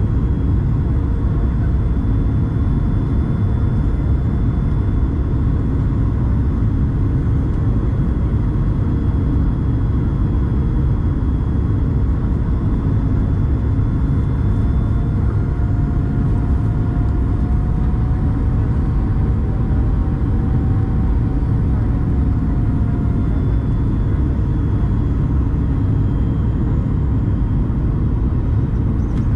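Steady in-cabin rumble of a Boeing 737 MAX 8 on final approach, heard from a window seat: airflow noise and the hum of its CFM LEAP-1B engines. A faint engine whine drifts up and back down about halfway through.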